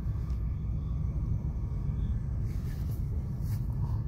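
Steady low rumble of a moving passenger train, heard from inside the carriage, with a few faint ticks in the second half.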